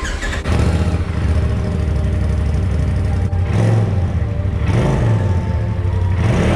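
Electronic dance track played loud through a sound bar, dominated by a heavy, distorting bass line that kicks in suddenly and slides up and down in pitch twice near the end.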